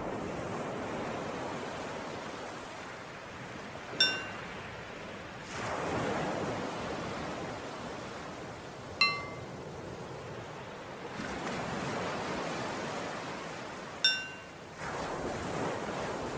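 Ocean waves washing in, swelling and easing in a slow cycle. A bell rings three times, about five seconds apart, alternating between two pitches, to cue each inhale and exhale of a paced-breathing exercise.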